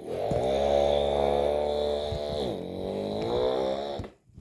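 A child imitating a car engine with the voice: a steady, buzzing hum that dips in pitch a little past two seconds in, then rises and holds again before stopping about four seconds in.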